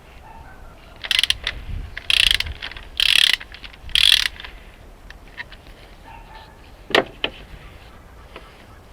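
Hand socket ratchet wrench ratcheting in four short bursts about a second apart, then a single sharp click: working the first fuel-injector stud.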